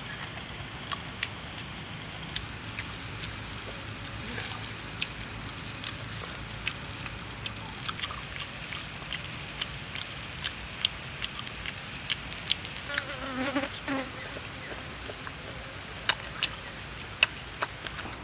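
Forest ambience: insects buzzing over a steady hiss, with many sharp clicks and crackles scattered through it. A short pitched call or squeak sounds about two-thirds of the way through.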